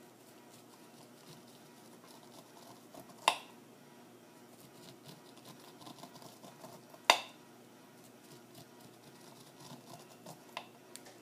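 A curved knife scraping kernels off an ear of fresh sweet corn into a metal bundt pan: faint, irregular scraping and small wet ticks. Two sharp clicks stand out, about four seconds apart.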